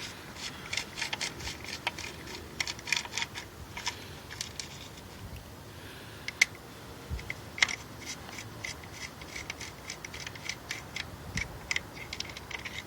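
3/8-inch drive ratchet with a 10 mm socket and extension clicking in short runs with brief pauses, backing off the 10 mm nuts that hold the wiring harness retainer.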